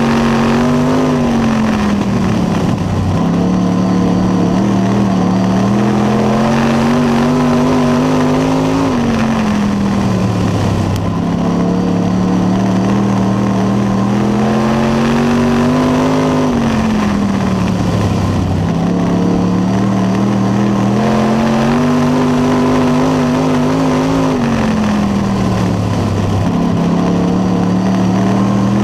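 Dirt late model race car's V8 engine at racing speed, heard from inside the cockpit: the pitch climbs steadily down each straight, then drops as the driver lifts for the turns, a cycle that repeats about every seven to eight seconds.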